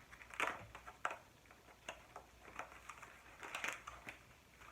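A mailer package being opened by hand, with irregular faint clicks and rustles of the packaging.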